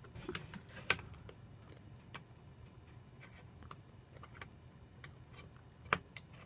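Small clicks and taps from hands working on the Mac Mini's internal parts, with two sharper clicks about a second in and near the end.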